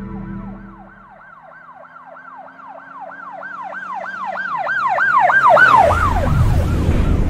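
Siren-style yelp sound effect, its pitch sweeping up and down about four times a second and growing steadily louder, with a deep rumble swelling up under it near the end. Music fades out during the first second.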